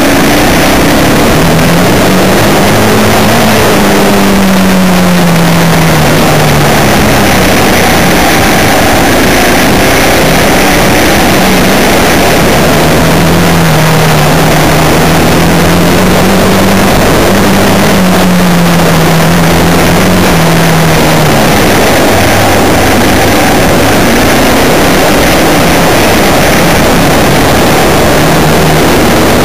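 A vehicle's engine running while driving on a gravel road, its pitch rising and falling in long swells as the throttle changes. A loud, steady rushing noise from wind and the road sits over it.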